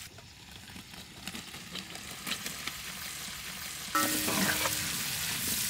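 Chopped bell peppers and onions frying in hot oil in a large pan, stirred with a ladle. Soft sizzling with scattered small clicks at first, then the sizzling gets suddenly louder about four seconds in.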